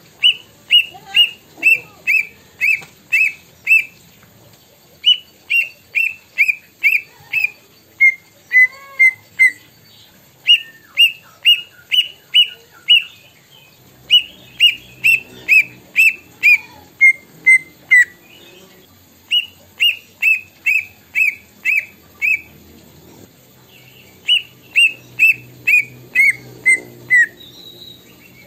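A caged green leafbird singing its mimicry of a plaintive cuckoo's call: about six runs of clear whistled notes, roughly three a second, the last few notes of several runs dropping lower, with short pauses between runs.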